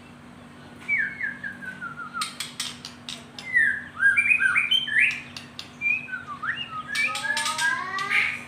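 Pet songbird singing: a run of notes stepping down in pitch, then a varied string of chirps and whistles, with sharp clicks among them.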